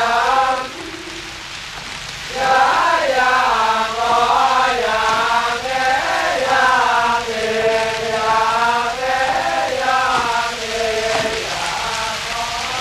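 A voice chanting one long, wavering held line that starts about two seconds in and fades near the end, after a short note at the start. Under it runs the steady hiss of heavy rain.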